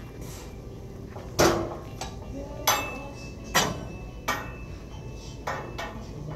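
Five sharp metallic clanks and knocks with short ringing tails, about a second apart, the first the loudest. They come from a gym weight machine being let go and the phone being handled against it.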